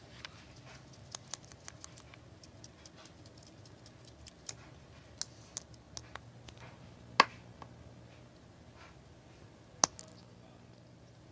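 Irregular light clicks and taps from a small clear plastic container being handled while tiny black sprinkles are shaken out over slime, with two sharper clicks, one about seven seconds in and one near the end.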